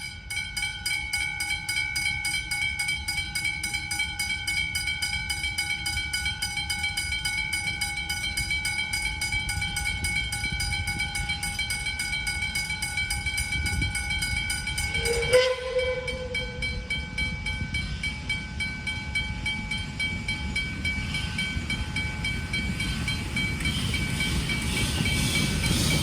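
Two Westinghouse hybrid electronic level-crossing bells start ringing rapidly as the crossing activates. About fifteen seconds in, with a brief louder sound, one bell stops, the one that rings until the gates are down, and the other, flattened bell keeps ringing. The rumble of the approaching train grows near the end.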